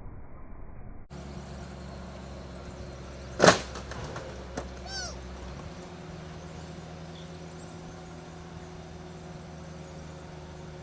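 A car's engine running steadily, then one loud, sharp crunch about three and a half seconds in: a reversing car striking a parked car.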